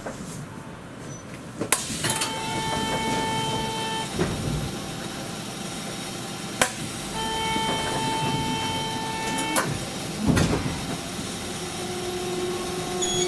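Electric buzzer inside a Toyohashi Railway 780-series tram, sounding twice as a steady buzz of about two seconds each, with sharp clicks and knocks between. A lower steady hum comes in near the end.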